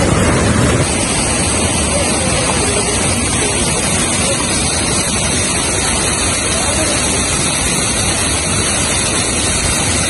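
Waterfall pouring and splashing close to the microphone: a loud, steady rush that drops slightly about a second in.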